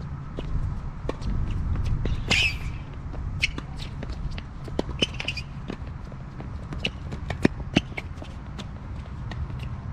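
Tennis rally on a hard court: sharp pops of racket strings striking the ball, ball bounces and players' shoes scuffing on the court, the loudest two hits coming close together about seven and a half seconds in, over a steady low rumble.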